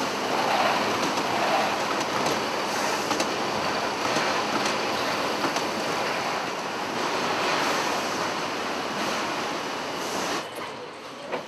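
Steady, loud, rushing din of a tin-can production line, with conveyors and empty cans rattling and a few faint clanks. It drops near the end, and a single sharp click follows.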